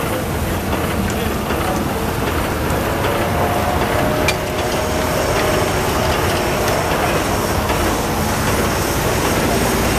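Russell steam traction engine running, its flywheel and gearing turning with a steady, fast mechanical clatter.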